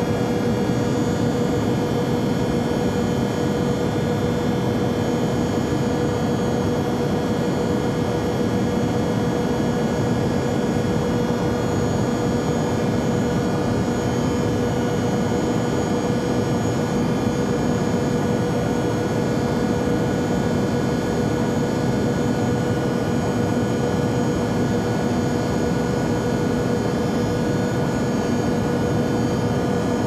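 Learjet business jet cabin in flight: a steady drone of engine and air noise with a constant hum, unchanging throughout.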